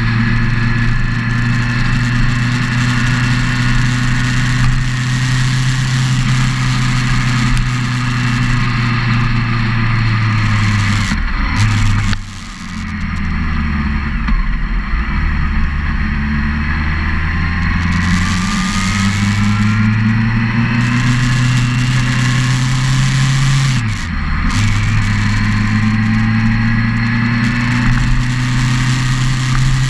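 Motorcycle engine running at road speed, heard from the riding bike, with wind rushing over the microphone. About twelve seconds in the engine note drops and stays lower for several seconds before climbing back, and it dips briefly again about twenty-four seconds in.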